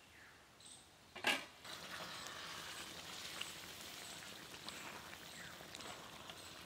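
A metal clank about a second in, then a wok of fish, tomato and green pea curry bubbling with a steady hiss, with light scrapes and ticks of a metal spatula stirring it.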